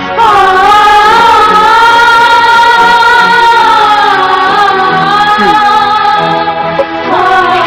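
Sad ringtone music: a long wordless vocal note held for about seven seconds over soft sustained backing, bending slightly midway and sliding down near the end.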